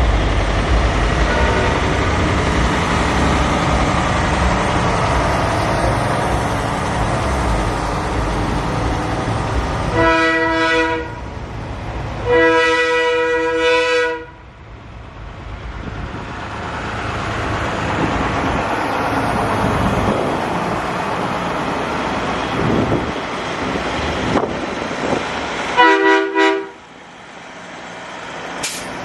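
Semi trucks rolling past with a steady diesel rumble, and loud multi-tone air horn blasts: two close together about a third of the way in, the second longer, and a short one near the end.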